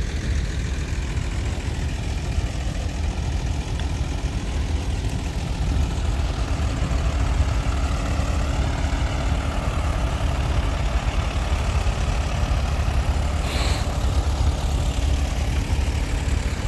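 An engine idling steadily, a low rumble throughout, with a short high-pitched sound about thirteen seconds in.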